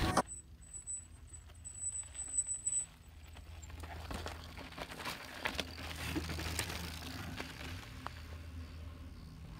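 Mountain bike riding over sandstone and sandy trail: scattered crunches, clicks and knocks from the tyres and bike over a low steady rumble, with a faint high whine in the first few seconds.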